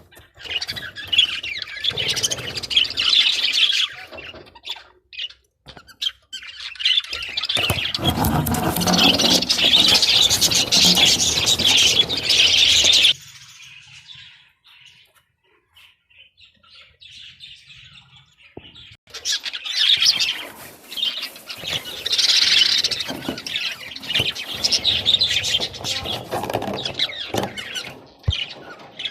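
Budgies chirping and chattering in busy stretches, with a quiet gap of several seconds about halfway through.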